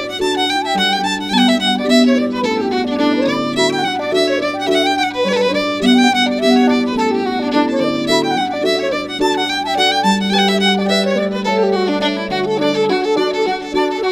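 Music: a violin plays a flowing melody with vibrato over steady held low notes.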